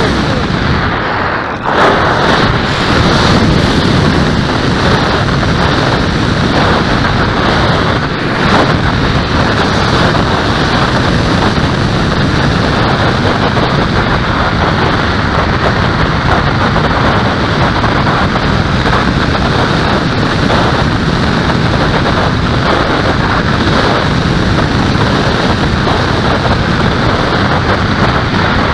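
Loud, steady rush of wind buffeting the microphone of a camera riding on an aircraft in flight, with no motor tone heard.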